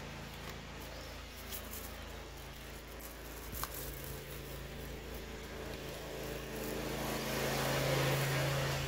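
A steady low mechanical hum that grows louder over the last two seconds, with a single sharp click about three and a half seconds in.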